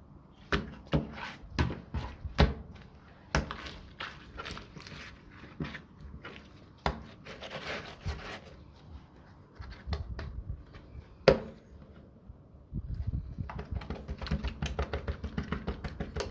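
Slime being squeezed and pressed by hand, giving sharp wet clicks and pops with short crackly squishes between them. Near the end it turns into a quick, dense run of small pops.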